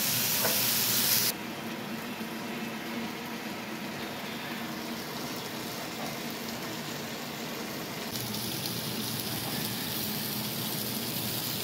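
Chicken breasts sizzling in oil on a grill pan, a bright hiss that cuts off suddenly about a second in. After that a quieter, steady hiss continues.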